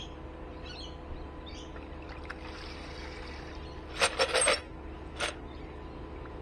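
A drilled plastic bucket of bolts is lifted out of a bucket of acid: the liquid sloshes and splashes as it drains through the holes. The loudest part is a half-second burst of splashing and clatter about four seconds in, as the bucket comes clear, followed by one more knock a second later.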